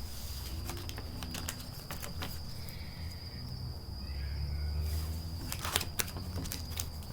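Tarot cards being shuffled and handled: flurries of sharp flicking clicks about a second in and again near six seconds, over a steady high-pitched trill like an insect's.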